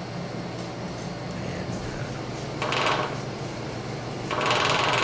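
Xbox 360 controller vibration motor, cut out and run off a AA battery through alligator clips. It whirs briefly about two and a half seconds in as the leads touch, then starts running steadily a little after four seconds with a loud, rapid buzz.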